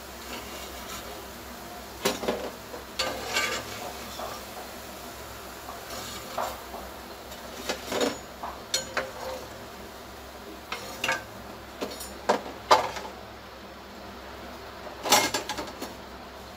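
Metal slotted spoon knocking and scraping against a kadhai as fried moong dal balls are lifted out of the oil, a dozen or so irregular clinks over a faint steady sizzle of the hot oil.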